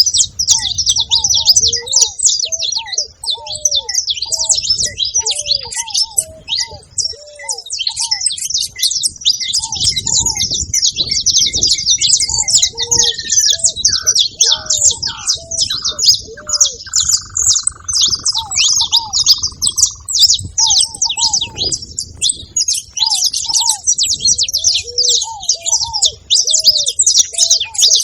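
Many saffron finches chirping and chattering without a break, high and dense. Under them, short low cooing notes repeat, typical of ruddy ground doves. Near the middle, a falling series of whistled notes slides down and then trails off.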